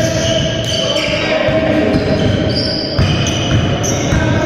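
A basketball being dribbled on a sports-hall floor, with sneakers squeaking in short high bursts and players calling out, echoing in the large hall.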